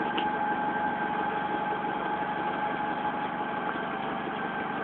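Electric-driven mortar mixer and plastering machine running steadily: a constant mechanical hum with a steady whine on top.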